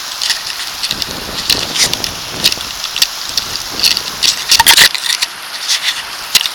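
River water rushing over a small rocky cascade, heard close up, with a steady hiss and many sharp crackling splashes. The splashes cluster loudest about four and a half seconds in.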